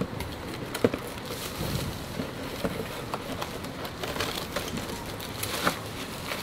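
Cardboard packaging scraping and a plastic bag crinkling as a cardboard insert is slid out of a box, with scattered light knocks and a sharper tap about a second in.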